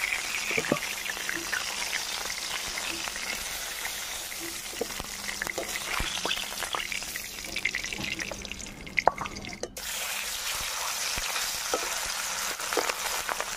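Tuna steaks coated in salt and turmeric sizzling steadily in hot mustard oil in a steel kadai. A spatula scrapes and knocks against the pan now and then as the pieces are turned and lifted out.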